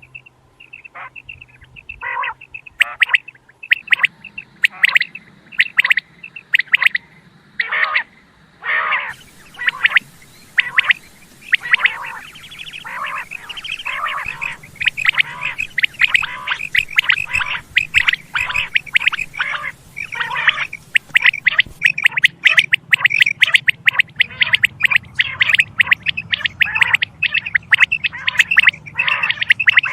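Quail calling: short, sharp repeated calls, spaced out at first, then from about twelve seconds in coming thick and fast in a dense, overlapping run.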